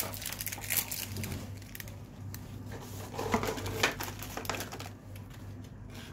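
Plastic snack wrapper crinkling in several short bursts, over a low steady hum.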